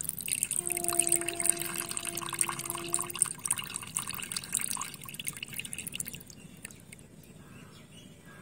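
Water trickling in a thin stream from a tilted miniature clay pot into a small clay bowl, draining boiled potatoes. The trickle thins and fades in the last few seconds.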